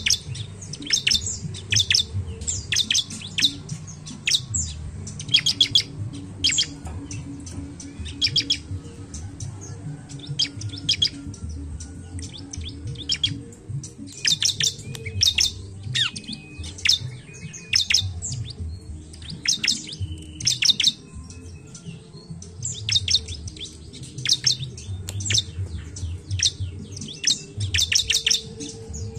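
Bar-winged prinia (ciblek) calling: quick runs of sharp, high chirps, repeated every second or two.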